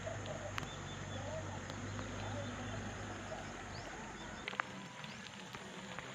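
Outdoor ambience: faint bird calls and a few sharp clicks over a steady hiss. A low hum cuts off about four and a half seconds in.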